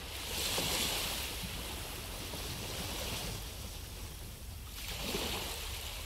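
Ocean waves washing onto a shore, fading in at the start. The hiss swells and ebbs, with a new wave surging in near the end.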